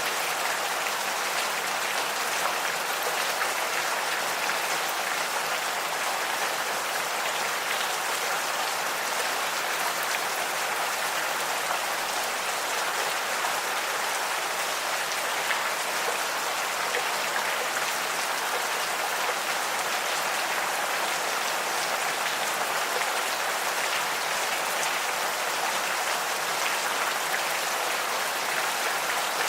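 Gentle rain falling steadily, an even patter of drops with no thunder.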